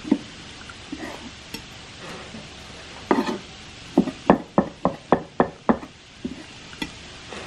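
Kitchen knife chopping steamed pork offal (liver and innards served with sundae) against a wooden cutting board. It starts with a few scattered chops, then about four seconds in comes a quick, even run of about eight chops, some four a second.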